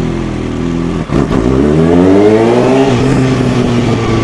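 Tuned Kawasaki Ninja ZX-6R's inline-four engine running steadily, then about a second in revving up sharply for about two seconds before the revs level off and ease back down.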